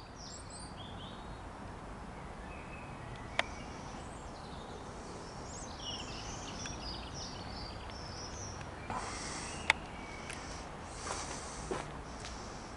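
Small birds chirping and twittering, short high calls scattered through the first half, over a steady low outdoor rumble. Two sharp clicks and a few brief rustles come in the second half.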